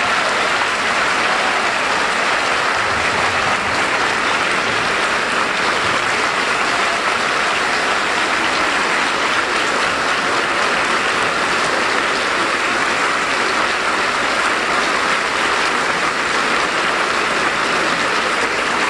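Large audience applauding, a dense, steady clapping that holds at one loud level without a break.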